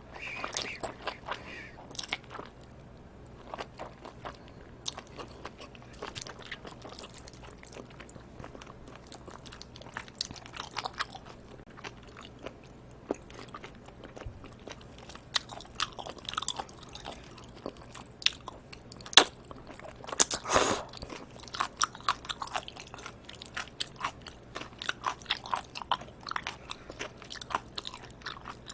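Close-miked eating: a person chewing and biting food, with many small wet clicks and crackles. A couple of louder smacks come about two-thirds of the way in.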